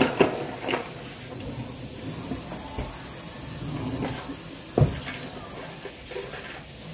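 Kitchen handling noises: a few quick knocks right at the start and one sharp knock a little under five seconds in, with low clatter and rustling between.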